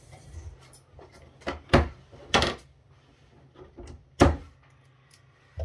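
Knocks and clunks of hands handling a plastic precision screwdriver bit case and a metal-cased firewall on a tabletop: four sharp knocks, the loudest just under two seconds in, a slightly longer clatter about two and a half seconds in, and a last knock about four seconds in.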